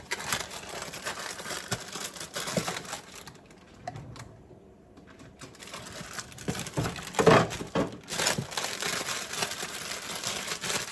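Plastic bag of cake mix crinkling as it is squeezed and kneaded to break up lumps, in two stretches with a short pause, and a louder knock about seven seconds in.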